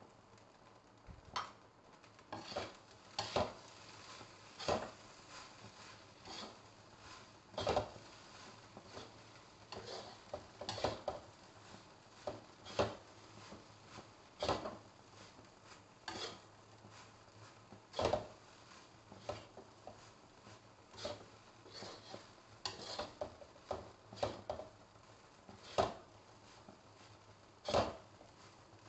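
Metal spatula and spoon scraping and knocking against a wok as fried rice is stirred and turned, in irregular strokes every second or two.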